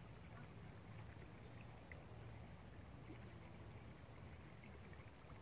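Near silence: faint river-bank ambience, a steady low rumble with a few faint ticks.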